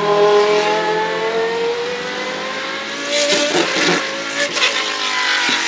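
McLaren Solus GT's Judd-derived 5.2-litre naturally aspirated V10 accelerating hard as the car passes and pulls away. The engine note rises steadily in pitch for about four seconds, then breaks up into a run of sharp cracks near the end.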